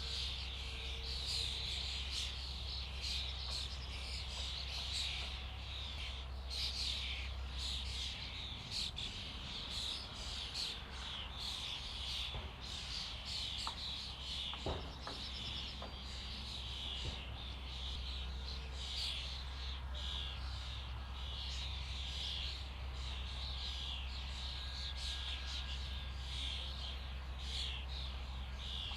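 A flock of common starlings chattering together, a dense, continuous mass of overlapping short whistles, clicks and rattles.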